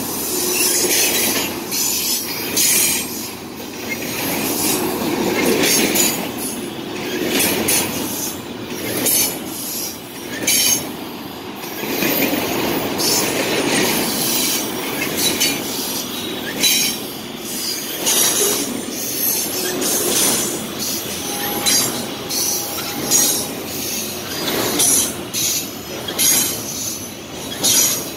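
CSX double-stack intermodal freight train rolling past at close range: a steady rumble and clatter of wheels on rail, with repeated short high-pitched wheel squeals.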